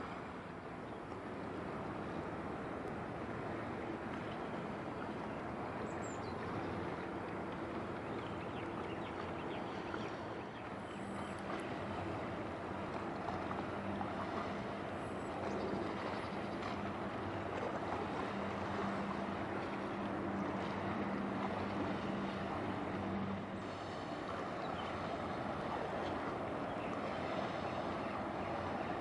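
Steady background noise of wind and water with a faint, low, steady hum of distant ship engines.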